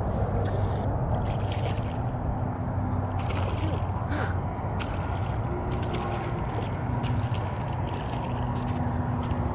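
Shallow water sloshing and lapping close to the microphone, over a steady low rumble, with scattered small splashes and clicks.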